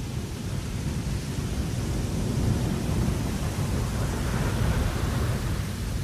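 Wind blowing across a ship's deck: a steady, noisy, low rumble that swells about halfway through and eases again near the end.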